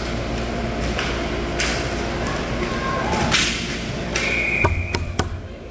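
Sharp knocks and a heavier thud of sticks and bodies in a scramble in front of the hockey net, then a steady referee's whistle of about a second, sounded after a player goes down.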